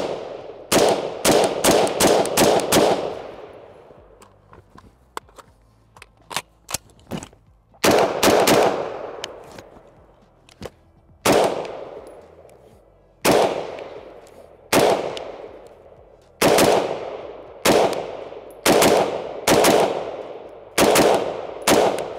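Semi-automatic gunfire from a Daniel Defense DD4 M4A1 RIII, a 14.5-inch 5.56 mm AR-15 rifle: a quick string of about seven shots, then a slower run of about ten single shots a second or two apart. Each shot rings out with a long echo.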